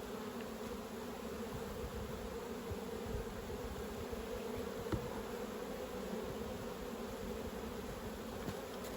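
Steady hum of a mass of honey bees buzzing around an opened hive, with a faint knock about five seconds in.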